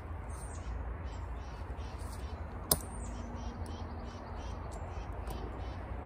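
Ratchet strap being worked on a wooden beehive: one sharp click about halfway through, over a steady low rumble.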